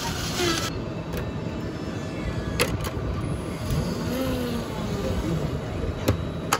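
Steady low rumble of a moving vehicle, with a few sharp clicks.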